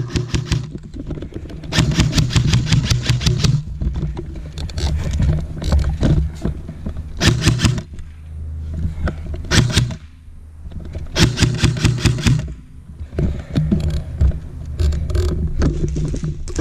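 Airsoft rifle firing in several bursts of rapid, evenly spaced shots, the longest burst about two seconds in, with short pauses between bursts.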